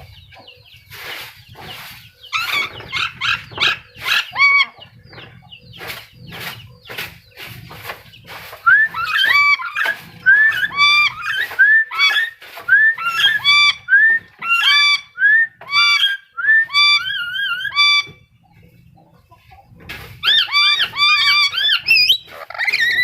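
Black-capped lory calling: short, harsh squawks, then a regular run of short pitched calls that rise and fall, about one a second, with a pause of about two seconds before a last quick burst.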